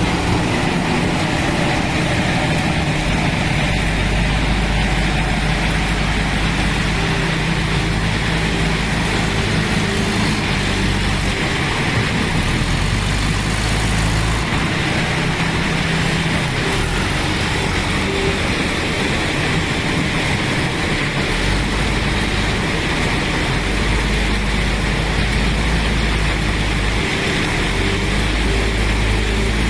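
Diesel engine of a JCB 3DX backhoe loader (Kirloskar engine) running hard, its note dropping and picking up every several seconds as the machine works.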